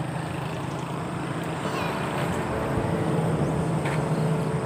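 Truck engine idling with a steady low hum.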